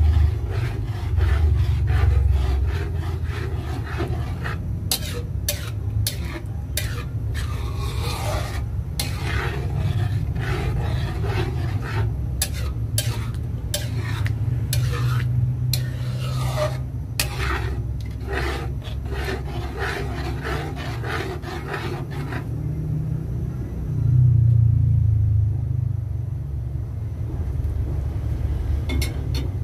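A metal spoon scraping and stirring thick tomato sauce in a metal pan, in many short strokes over a steady low rumble. The scraping stops a little over twenty seconds in, leaving only the rumble, which swells briefly soon after.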